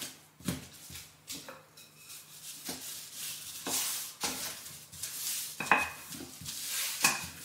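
Honey-cake dough being pressed flat by hand, then rolled out with a wooden rolling pin on floured baking parchment: irregular knocks and rustling of the paper.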